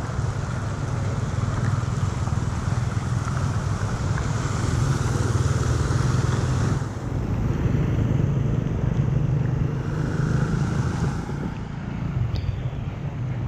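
Floodwater rushing steadily through a cleared street drain, with wind buffeting the microphone.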